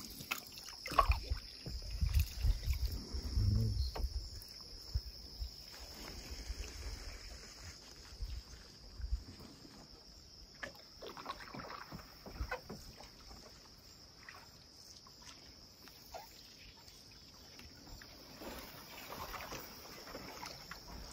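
Canoe being paddled: paddle strokes dipping into and pulling through lake water with splashes and drips, over a steady high insect buzz. Low rumbling buffets of wind on the microphone come and go through the first nine seconds or so.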